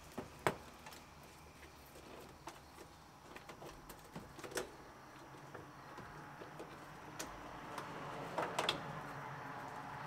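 Faint rustling and scattered light clicks as a truck's door wiring harness and its plastic connector are slid out through the door pillar.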